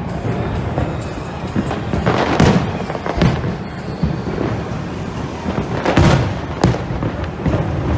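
Fireworks bursting in a display: a string of sharp bangs at uneven intervals, the loudest about two and a half and six seconds in, over a steady background with music.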